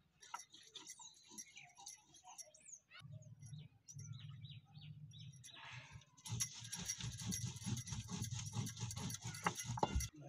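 Stone roller grinding dried red chillies and seeds on a flat stone grinding slab (sil-batta): rapid, repeated rasping and crunching of stone on stone as the masala is crushed, loudest from about six seconds in. Before that, only scattered light knocks.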